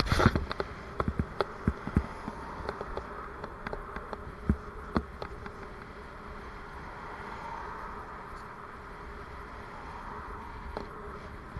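Raleigh Mustang Elite bicycle riding on tarmac: a steady buzz and hum from the moving bike, with sharp knocks and rattles from bumps in the first half.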